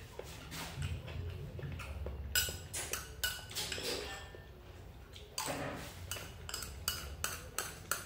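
Metal spoon clinking against a small porcelain bowl as food is scooped, in two runs of quick light clinks: one about two seconds in and another from about five seconds in.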